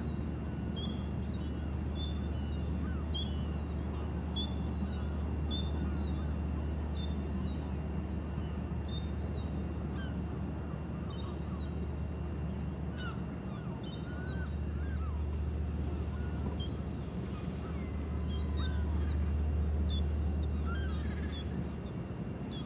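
Birds calling repeatedly with short high chirps, about one or two a second at first and sparser later, over a steady low rumble that swells and dips.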